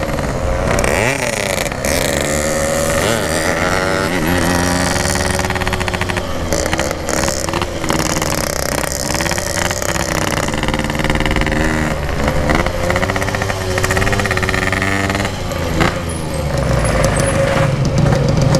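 Yamaha RX-King 135cc two-stroke single running through a Packing Power exhaust while being ridden, its pitch rising and falling again and again with throttle and gear changes.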